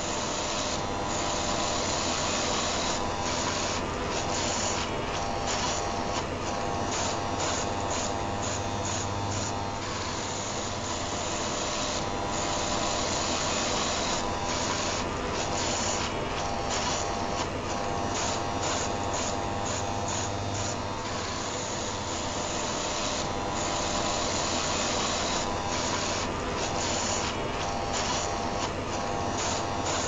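Rotary electric shaver running continuously, mixed with the steady whir and hum of an electric fan heater. The high hiss drops out briefly over and over while the low hum stays steady.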